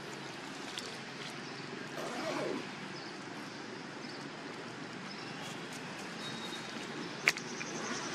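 Steady outdoor background hiss, with a short falling call about two seconds in and one sharp click near the end.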